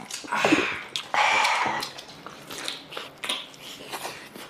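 Two loud slurps of soup drunk from a bowl in the first two seconds, then chewing with small wet mouth clicks.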